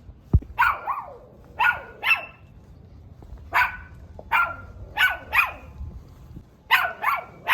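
Chihuahua barking: about ten sharp, high-pitched yaps, several in quick pairs. A single low thump comes about half a second in.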